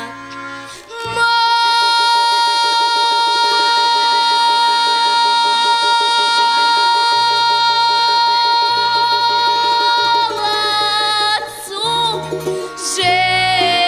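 Vocal trio singing a Russian folk song with instrumental accompaniment. A voice holds one long high note for about nine seconds on 'Время', then the verse goes on with 'молодцу' near the end.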